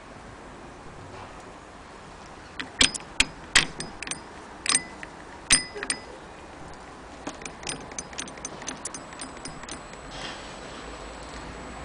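Hand-crank mechanism of an 1890 Singer 12K sewing machine clacking as the crank is turned: first a few sharp, irregular clacks, then a quicker run of lighter ticks, about three or four a second, that stops about nine seconds in.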